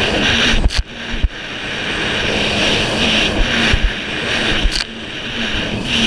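Yamaha jet ski running at speed, its engine note under a steady rush of wind on the microphone and hissing spray. The sound dips briefly twice, with a few knocks as the hull hits the chop.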